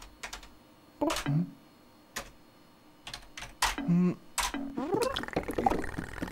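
Computer keyboard typing, in scattered clicks, with short vocal noises from the cartoon characters and a longer wavering vocal sound in the last second or so.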